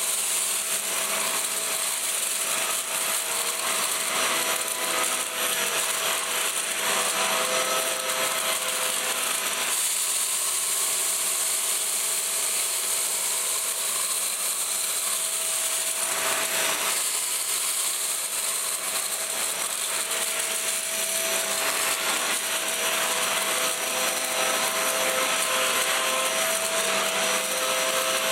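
Hoover Slalom Allergy Care+ bagless upright vacuum cleaner running steadily with a constant whine and high hiss, with a scratchy rubbing as it is pushed over the floor picking up debris.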